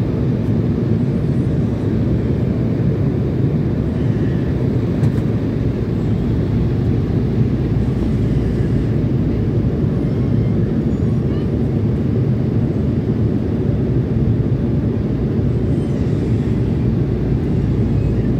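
Steady cabin noise of a jet airliner in flight, heard from inside the cabin: an even, low drone of the engines and rushing air.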